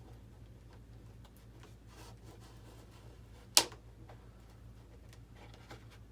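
Razor blade working into an RC jet's foam airframe: faint scraping and small clicks, with one sharp click about three and a half seconds in. A low steady hum runs underneath.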